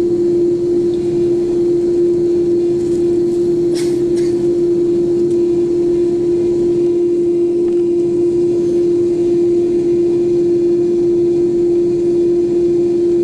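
Airbus A330-200 jet engines heard from inside the cabin, running with a steady hum and rush as the airliner lines up with the runway. A brief click about four seconds in.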